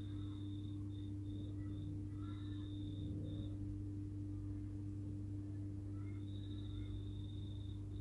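A steady low hum, with a faint high-pitched trill that stops after about three seconds and comes back near the end.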